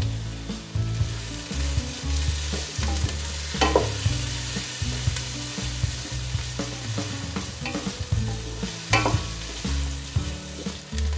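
Sliced onions sizzling in hot oil in a nonstick pot, stirred and scraped across the pan with a wooden spatula, with a couple of sharper scrapes about a third of the way in and again near the end. The onions are frying to the translucent stage.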